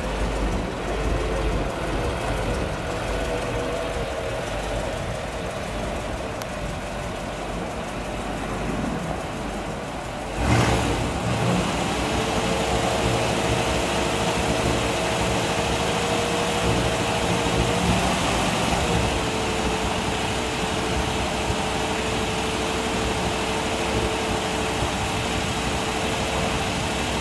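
The power convertible top of a 1955 Chevrolet Bel Air switches on suddenly about ten seconds in. Its electro-hydraulic pump then runs with a steady whine while the top folds down.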